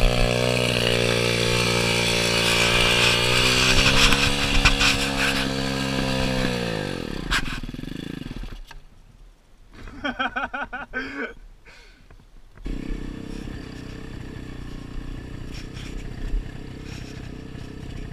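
125cc dirt bike's engine running steadily while the bike lies fallen on the trail, then sagging in pitch and stalling about seven seconds in. A few seconds later a quieter, steady engine noise of riding takes over.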